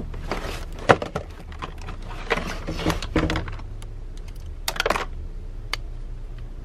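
Hands rummaging through a box of toiletries and packaging: plastic items clacking and rustling, with several sharp clicks spread irregularly through it.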